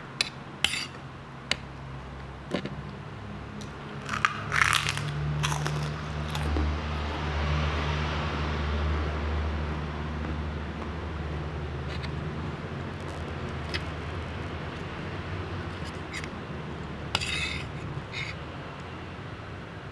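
Spoon clinking and scraping against a plate during eating: a few sharp clicks near the start, a cluster about four to six seconds in and another near the end. A low steady rumble runs underneath and swells for a few seconds in the middle.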